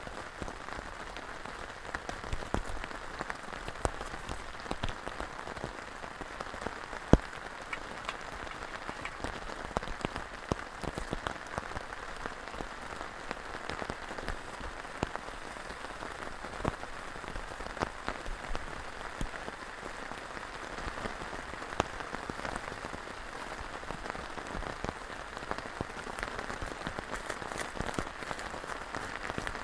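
Heavy rain falling steadily on a tent tarp and the grass around it, with scattered louder drop hits and one sharp tap about seven seconds in.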